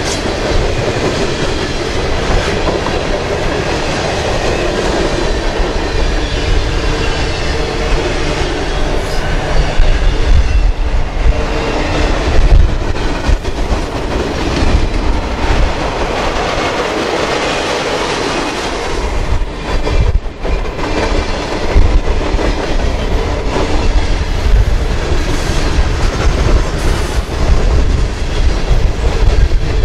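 Freight train of covered hopper cars and boxcars rolling past at close range: a steady rumble with the wheels clattering over the rail.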